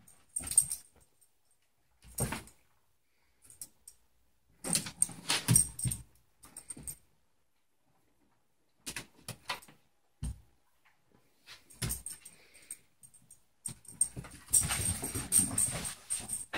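Corgi puppy's claws clicking and scrabbling on a hardwood floor in irregular bursts as it chases a laser dot, with a metallic jingle. The longest, loudest scuffle comes near the end.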